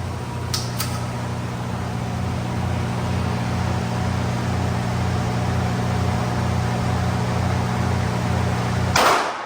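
Steady mechanical hum and hiss, like a large ventilation fan, with two light clicks about half a second in. About nine seconds in there is one loud sharp bang, after which the noise cuts off suddenly.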